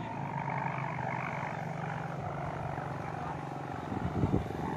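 Kite-borne sawangan, bamboo hummers on large kites, droning steadily in the wind with a low, buzzing hum and a fast even pulse. A brief louder low burst comes about four seconds in.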